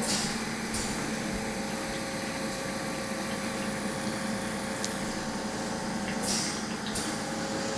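A steady low mechanical hum with a few brief soft swishes.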